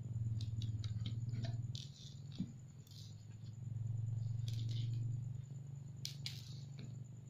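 Soft rustling and patting of hands rolling brown-sugar tapioca dough into logs on a tabletop, over a steady low hum. About six seconds in come a couple of sharper clicks as a knife starts cutting the dough.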